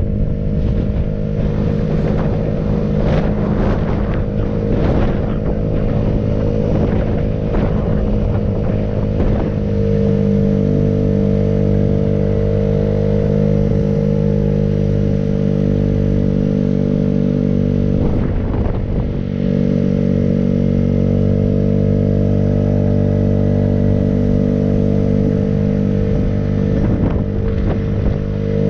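Vehicle engine running at a steady, even pace while driving along a paved road. There are rattling knocks through the first ten seconds, and the engine note dips briefly about two-thirds of the way through.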